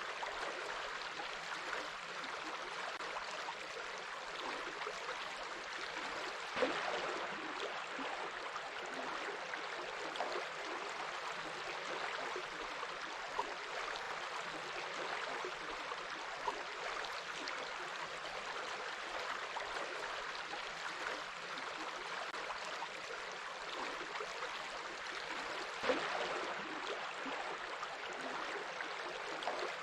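Water of a small stream flowing and babbling steadily over stones, with a slightly louder splash about seven seconds in and another near the end.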